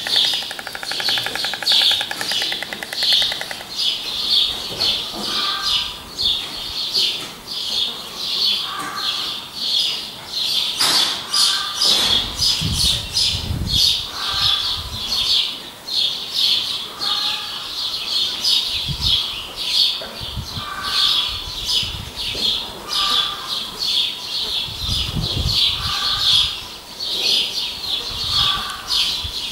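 Small birds chirping continuously in a dense, rapid chatter, with a short call repeating every second or two, and a few brief low rumbles.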